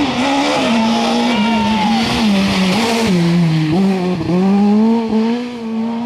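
Škoda Fabia S2000 rally car's engine revving hard through a tight bend. The engine note falls about three seconds in and jumps back up a second later as it accelerates away.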